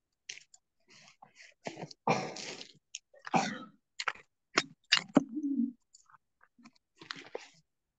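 Scattered short throat and mouth noises, heard through a video call: a couple of brief cough-like bursts, a few clicks, and a short low hum a little after five seconds in.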